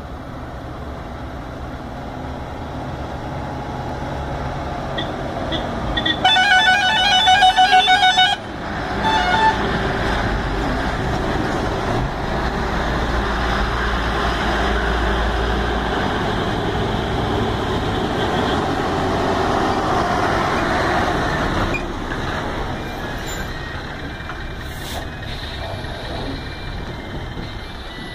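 Heavy lorries' diesel engines labouring up a steep hairpin bend, loudest in the middle as a loaded truck passes close. About six seconds in, a loud pulsing multi-tone horn sounds for about two seconds, with a short blast again a second later.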